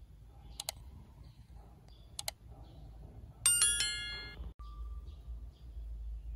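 Subscribe-button overlay sound effect: two computer mouse clicks about a second and a half apart, then a bright notification bell ding, the loudest sound, ringing out for about a second.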